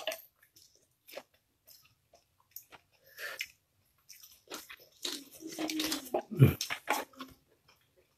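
Eating cooked lobster by hand: shell cracking and snapping, with biting and chewing of the meat. A sharp crack comes right at the start, then a busier run of crunching and chewing about five to seven seconds in.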